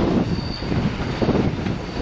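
Approaching electric passenger train: the rails carry a faint, steady high whine of the oncoming wheels over a low rumble.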